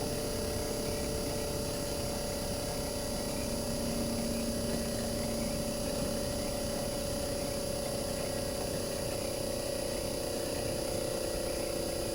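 RECHI 43W26SH single-rotary inverter compressor of a Sharp AU-J25XY air-conditioner outdoor unit running steadily, heard raw with the unit opened up: a continuous hum made of several steady tones, with a faint high whine above it.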